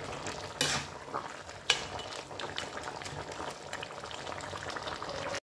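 Chicken curry bubbling and sizzling in a steel kadai over a low gas flame, the chicken frying slowly in its own onion and garlic juices. A slotted spoon scrapes and clicks against the pan a few times, and the sound cuts off abruptly just before the end.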